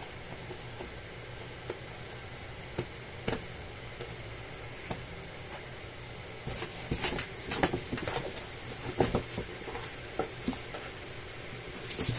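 Cats scrabbling and rustling against a cardboard box: scattered scratches and taps, busier from about six seconds in, over a steady hiss.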